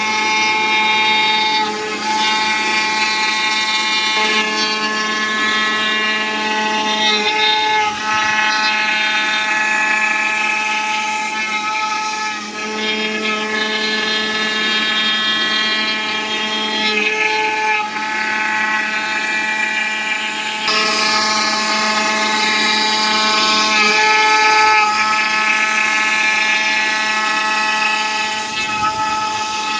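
CNC foam cutting machine running through a cut in EVA foam: a steady, loud whine made of many tones, which shifts to a new pitch every few seconds as the cut changes.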